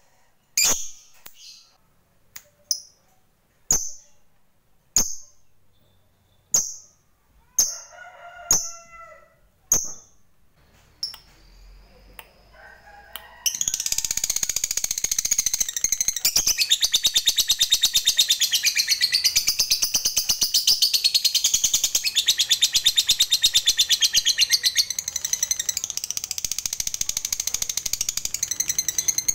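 A lovebird calling: sharp single chirps about once a second, then about thirteen seconds in it breaks into a long, rapid, unbroken chattering trill. This is the 'ngekek panjang', the long chatter that lovebird keepers prize.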